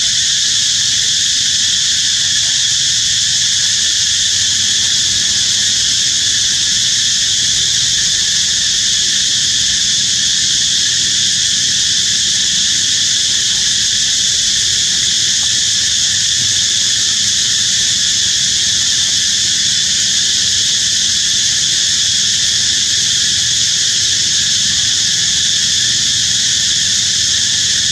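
Steady, high-pitched chorus of insects, a continuous shrill drone that never breaks.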